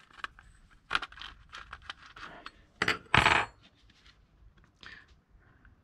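Small metal hand tools clinking and scraping as they are picked up and handled, with one louder metal clatter about three seconds in that rings briefly.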